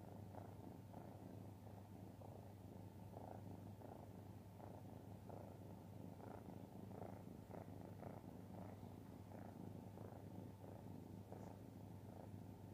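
Grey-and-white kitten purring faintly and steadily, held against the chest right by the microphone.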